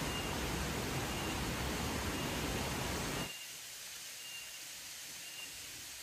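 Steady rushing noise of flowing water from a stream and waterfall. About three seconds in it drops suddenly to a quieter, thinner hiss. A faint high chirp repeats about once a second throughout.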